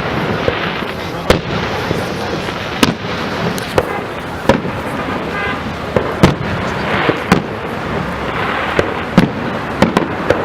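Fireworks display: sharp shell bursts go off irregularly, about one every second or so, over a steady rush of background noise.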